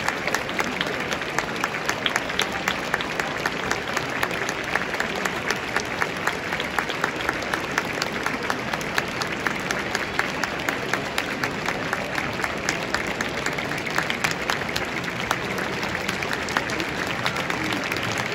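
Football stadium crowd clapping: many sharp claps over a steady crowd noise, going on evenly throughout.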